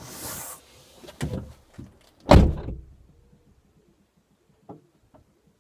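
A short hiss, then a few knocks and one loud thump a little over two seconds in, followed by faint light ticks.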